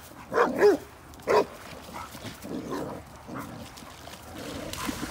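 Great Dane giving short, high yelping barks, three loud ones in the first second and a half and fainter ones after.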